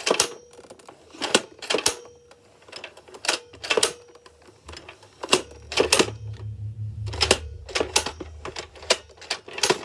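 Plastic toy blasters being handled: irregular sharp clicks and clatters of hard plastic parts, some in quick pairs.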